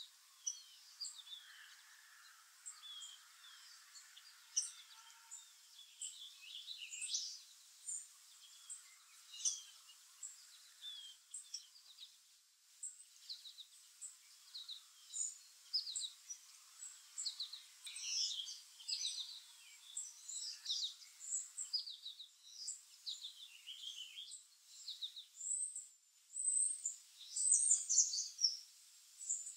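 Small songbirds calling: a steady stream of short, high chirps and twitters, several birds overlapping, busiest and loudest near the end.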